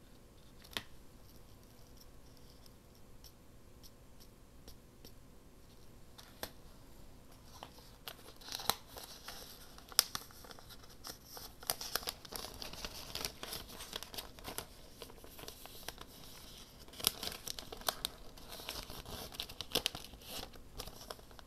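Paper being handled, crinkled and torn at a craft table: a few faint ticks at first, then from about eight seconds in a busy run of crinkling, rustling and sharp little snaps.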